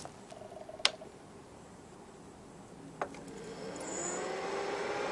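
NEC VT45K projector powering on. There are sharp clicks about a second in and again at three seconds, then its cooling fans spin up with a rising whine that levels off into a steady whir.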